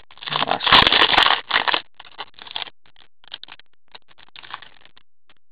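Plastic-foil wrapper of a hockey card pack being torn open and crinkled by gloved hands, with the loudest tearing about a second in, then lighter crinkles.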